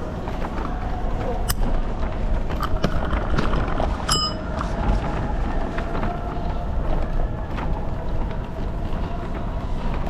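Steady low rumble of wind and road noise on a camera riding an electric kickboard, with a faint steady whine and scattered clicks. A short high beep comes about four seconds in.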